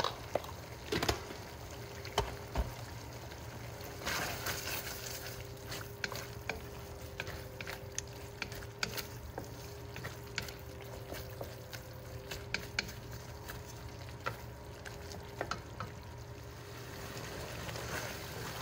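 Beef slices in a thick soy-based sauce bubbling and sizzling in a nonstick pan, with many small pops throughout, while a wooden spatula stirs and scrapes through it.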